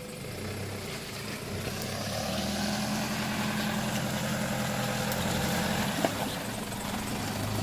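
Toyota Hilux engine pulling under heavy throttle as it tries to climb out of a muddy rut. The drone builds over the first couple of seconds, holds steady, and eases off near the end.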